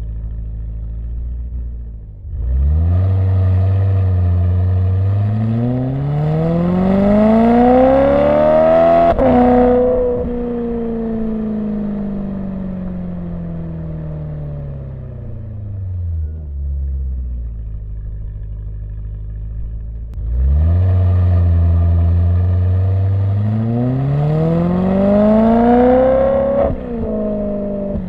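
BMW E92 M3's V8 through a Borla ATAK exhaust without venturis, accelerating twice: each time the engine note climbs steadily for about six seconds. Then it drops sharply as the throttle is released and winds down slowly.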